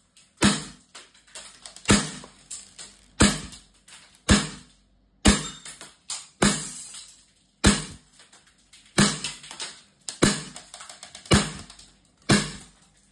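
Umarex Beretta M9A3 CO2 blowback BB pistol fired shot after shot, about eleven sharp cracks a little over a second apart, each with the slide cycling. Lighter clicks and clatter fall between the shots.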